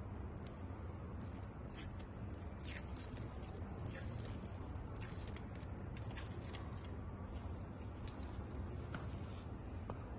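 Faint, irregular snips and scrapes of a hand tool cutting away the top covering on an e-bike controller's connector, over a steady low hum.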